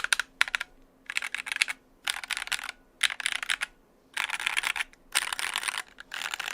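Mechanical keyboard with Glorious Fox linear switches being typed on fast, the keystrokes coming in quick bursts of clacks about once a second with short pauses between.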